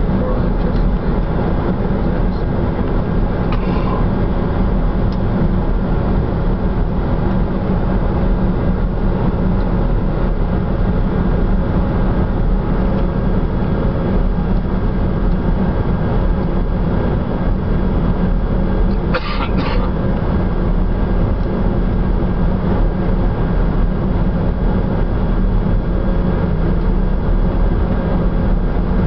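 Steady rushing, humming cockpit noise of a Bombardier Challenger 605 business jet on final approach to landing. A brief double click-like sound comes about two-thirds of the way through.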